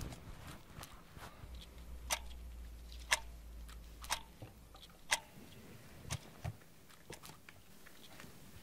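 Kit-Cat wall clock ticking about once a second, four sharp ticks standing out in the middle, with fainter clicks around them.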